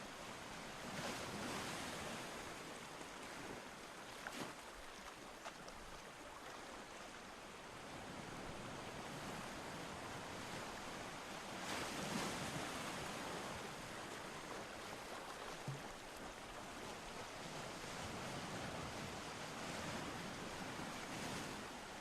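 Ocean surf: a steady wash of waves, swelling louder about a second in and again about halfway through.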